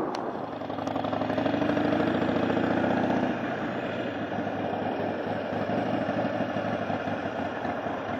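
Motorcycle engine running under way: louder for the first three seconds or so as it pulls, then settling to a lower, steady run.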